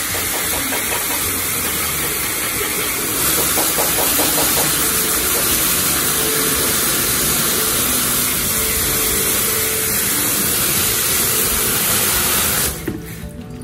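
Water jet from a hose spraying hard into a bucket of diluted car-wash soap to whip it into foam: a loud, steady hiss that gets a little louder about three seconds in and cuts off near the end.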